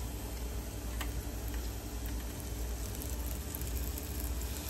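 Breaded grunt fillet frying in hot oil in a shallow pan: a steady sizzle with scattered crackles and pops.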